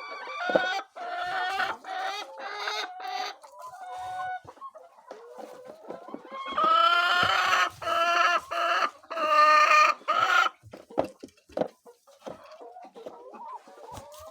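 Chickens clucking and calling in a series of short pitched calls. A louder run of calls comes about halfway through.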